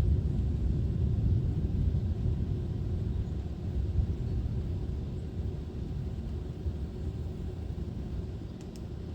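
Strong wind buffeting the microphone: a low, gusting rumble that eases off through the second half.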